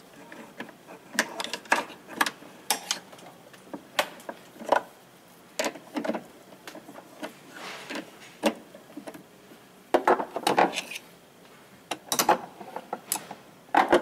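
Irregular metal clicks and clanks of an adjustable wrench and a screwdriver on a washing machine's clutch pulley as the nut on its shaft is turned loose. The clanks come more thickly about ten seconds in and again near the end.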